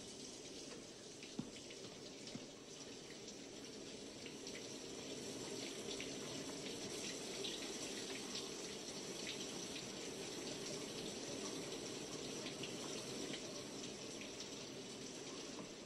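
Water running steadily, an even rushing wash with faint scattered drips and ticks.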